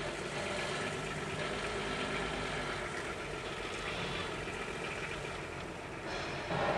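Car engine running at low speed as the car creeps forward, heard from inside the car's cabin, growing a little louder near the end.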